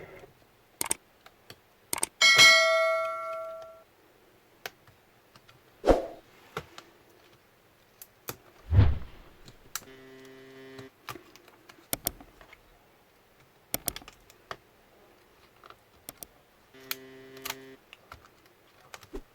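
Scattered light clicks and taps of small tools on a laptop's plastic case and connectors during disassembly. About two seconds in, a metal clink rings out briefly. A heavy thump comes near the middle, and a one-second buzzing tone sounds twice.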